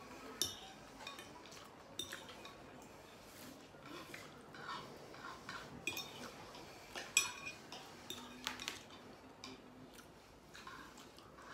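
Metal fork clinking and scraping against a ceramic plate in scattered taps, scooping up the last of the pasta.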